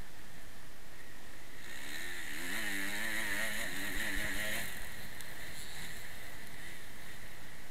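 Motocross bike engine heard through a helmet camera over a steady rush of noise; about two seconds in, the revs rise and fall for a couple of seconds as the bike rides the dirt track.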